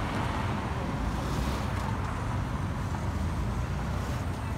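Airbus A320-216's CFM56 turbofan engines, a steady deep jet rumble as the airliner passes overhead after departure, easing off slightly.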